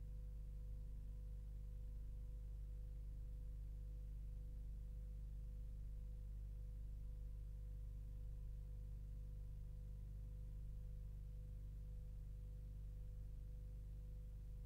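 Faint, steady low hum with a thin held tone above it, unchanging throughout.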